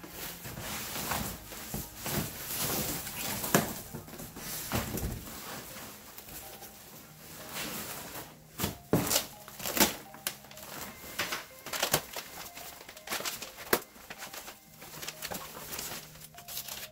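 Cardboard box being opened by hand: flaps scraping and being folded back, with irregular knocks and crinkling of the white plastic wrapping around the part inside.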